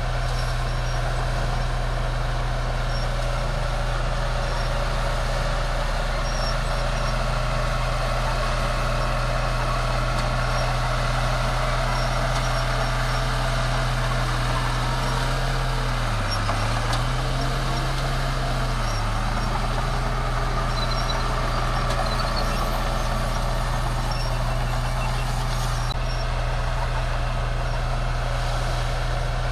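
Crawler bulldozer's diesel engine running steadily. Its note dips briefly about halfway through, then comes back up.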